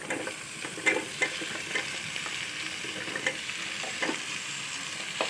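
Raw potato slices dropping into hot oil with frying onions, the oil sizzling steadily, with a few short knocks as handfuls of slices land in the pot.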